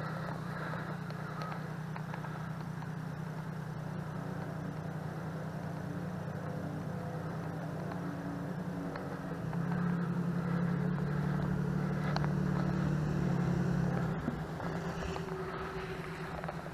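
Pickup truck engine running steadily, growing louder for about four seconds around ten seconds in, then easing back.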